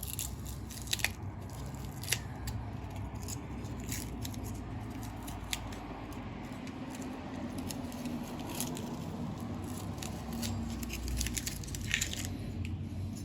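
Masking tape being peeled off a freshly painted turn-signal housing: scattered small crackles and ticks over a low steady hum.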